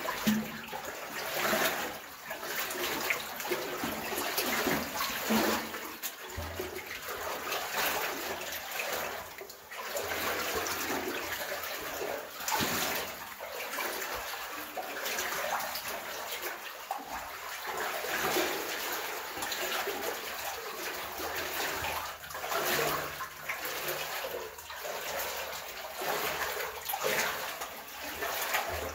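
Wellington boots wading through deep water, splashing and sloshing with each stride.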